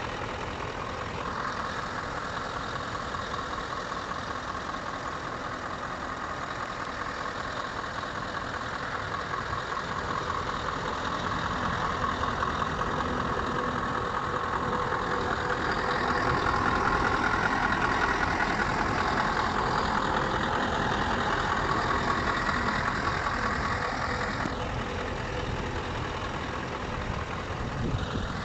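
Scania R560's V8 diesel engine idling steadily, getting louder for a stretch in the middle and easing back down near the end.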